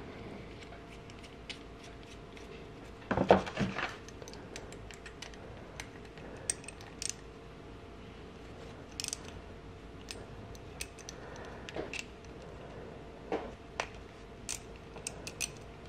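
Scattered metallic clicks and clinks of hand tools as a brake bleeder screw is threaded into a motorcycle master cylinder and turned with a small ratchet and socket, with a louder clatter about three seconds in. A faint steady hum runs underneath.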